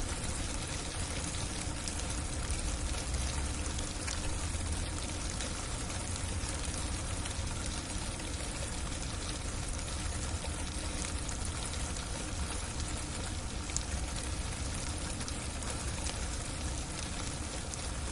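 Freezing icy rain falling steadily on a roof: a dense, even hiss scattered with many small sharp ticks, over a low rumble.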